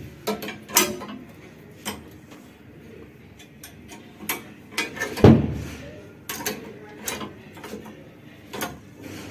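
Hand-operated rebar ring bending machine at work: a 6 mm steel bar clicks and clanks against the machine's die and stopper as it is bent into a square ring. Scattered sharp metal clicks, with one heavier thump about five seconds in.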